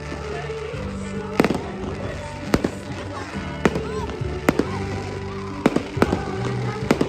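Fireworks going off, sharp bangs at about one a second, over music playing with the display.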